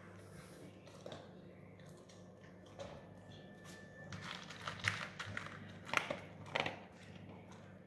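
A dog crunching dry kibble from a plate: a run of sharp crunches from about halfway through, loudest around five and six seconds in.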